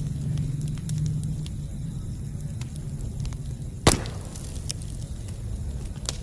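Campfire burning, with a steady low flame noise and scattered small crackles, and one loud sharp pop about four seconds in.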